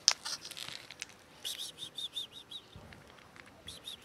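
Cat crunching dry kibble, sharp crackly chews that are loudest just after the start. About halfway through, a quick run of high chirps starts and comes again near the end.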